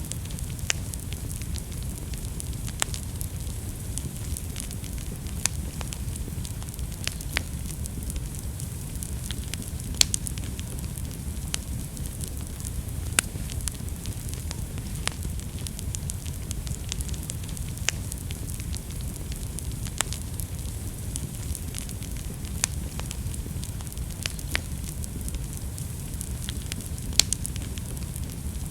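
Wood fire burning in a fireplace: a steady low rush of flames with sharp crackles and pops every second or two.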